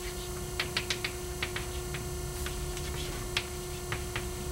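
Chalk tapping against a chalkboard as someone writes: short, irregular clicks, several a second, over a steady electrical hum.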